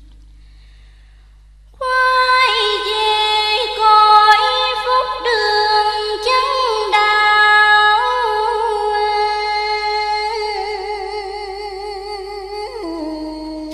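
A woman's voice chanting Vietnamese verse in the drawn-out ngâm style, beginning about two seconds in. She holds long notes that slide between pitches and waver with vibrato near the end.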